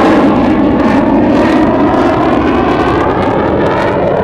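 F/A-18 Hornet's twin General Electric F404 turbofans in a loud, steady jet roar as the fighter flies its display pass, the hiss easing slightly toward the end.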